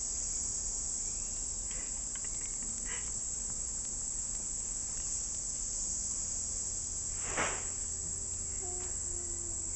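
Steady, high-pitched insect chorus, a constant drone that does not change. A short breathy noise sounds once about seven seconds in.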